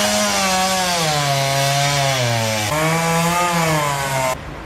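Chainsaw running at high revs and cutting into wood, its engine pitch sagging under load and picking up again, over a steady hiss of the chain in the cut. The sound cuts off abruptly near the end.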